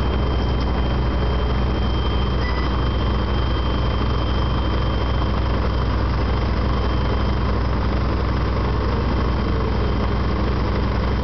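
Engine of a tracked hauler (mini tracked power buggy) running steadily while its hydraulic lift lowers the emptied high-tip bucket. A thin, steady high whine sits over the engine hum.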